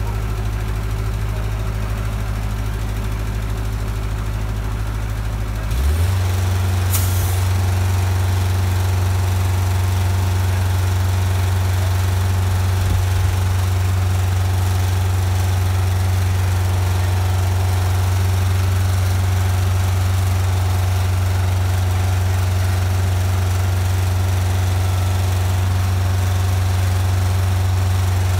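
Heavy engine running steadily at idle with a strong low hum. About six seconds in, the sound shifts and grows louder, and a short hiss follows a second later.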